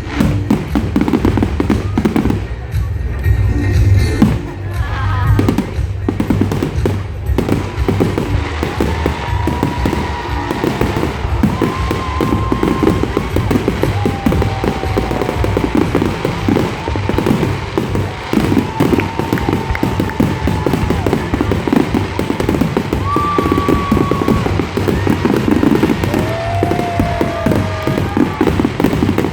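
Fireworks display: a dense, continuous run of bangs, thuds and crackles.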